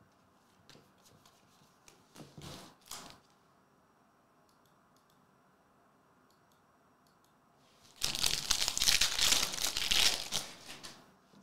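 Faint rustle of trading cards being handled, then about eight seconds in the wrapper of a hockey card pack is torn open and crinkled for about three seconds.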